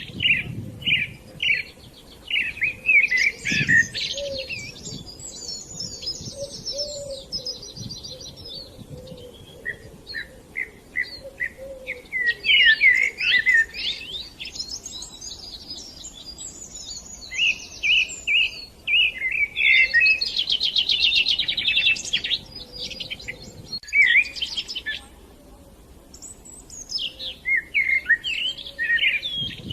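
Several songbirds chirping and singing: a steady run of short chirps, broken by fast high trills a few seconds in, again around the middle, and again near the end.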